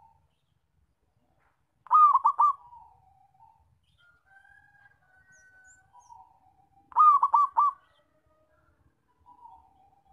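Zebra dove (perkutut) cooing twice, about five seconds apart. Each call is a quick run of three or four loud, clipped notes followed by a softer, lower trailing coo, with faint soft coos between the calls.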